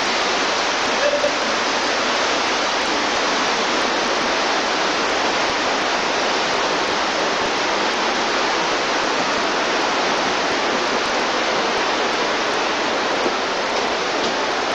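Steady rushing of flowing water from an underground cave stream, even and unbroken.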